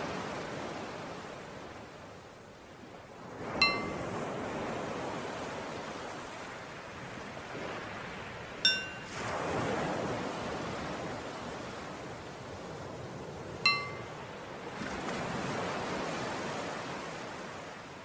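Ocean waves washing in and out in slow swells, with a bell struck three times about five seconds apart. Each strike is a short bright ring, the cue to switch between breathing in and breathing out.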